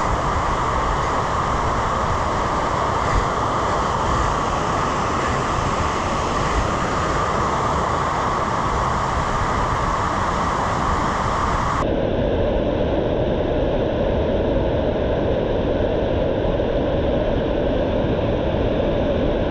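Steady, loud rushing noise with no clear pitch or rhythm. About twelve seconds in it changes abruptly: the hiss at the top drops out and the sound becomes lower and duller.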